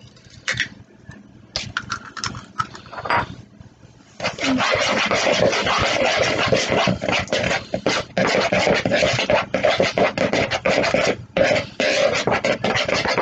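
An egg being beaten into a coating mix in a bowl. A few separate clicks and taps come first, then from about four seconds in a utensil clatters rapidly and steadily against the bowl, with a couple of brief pauses.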